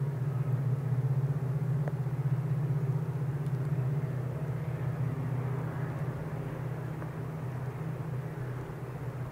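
Diesel locomotive engine running with a steady low drone, slowly getting quieter.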